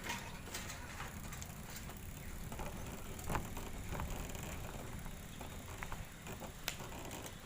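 Bicycle being ridden: a steady low rumble of tyres rolling, with scattered clicks and rattles from the bike.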